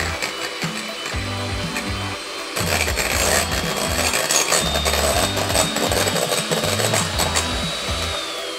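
Handheld electric mixer running, its twin beaters whisking egg whites into foam in a glass bowl, with a steady motor whine; it grows louder about two and a half seconds in. Background music with a steady beat plays underneath.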